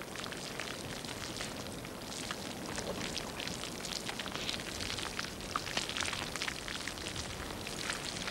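Slow-moving ropy pahoehoe basalt lava crackling: many small dry cracks and ticks over a steady hiss, growing denser about two seconds in.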